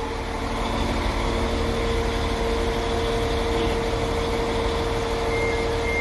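Northern class 195 diesel multiple unit idling at the platform: a steady low engine rumble with a held hum. Near the end a run of short, high beeps starts up.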